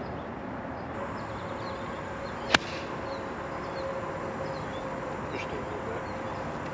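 A single sharp crack of a golf club striking the ball off the tee, a little before halfway, over steady outdoor background with a few faint bird chirps.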